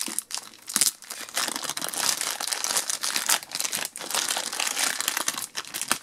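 Thin clear plastic bag crinkling and rustling as hands pull it open and peel it off a hard plastic toy figure.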